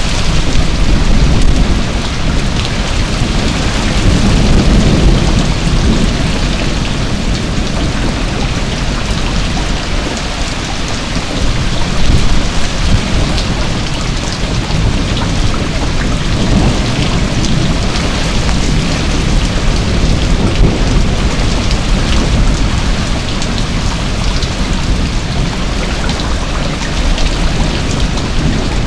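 Heavy rain pouring steadily onto a lawn, trees and a paved patio: a dense, even hiss with a low rumble underneath that swells about four to five seconds in.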